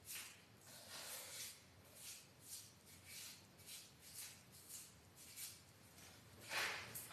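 Hand trowel scraping in short strokes, about two a second, over a fresh coat of fine finishing plaster, smoothing it to finish. A brief louder noise comes near the end.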